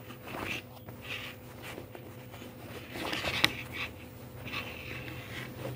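Fabric of cargo trousers rustling and rubbing as hands fold and turn them, with one sharp click a little past halfway. A faint steady hum runs underneath.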